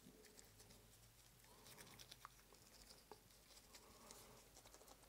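Near silence, with faint scattered soft taps and rustles from gloved hands working the icing waves.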